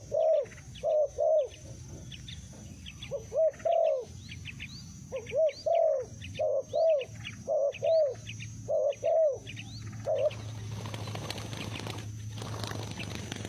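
Spotted dove cooing: repeated phrases of two or three low, arching coos that stop about ten seconds in, with small birds chirping high over them.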